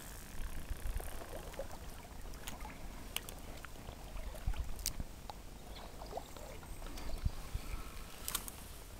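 Scattered small clicks and knocks of handling close to the microphone, over a faint sound of river water.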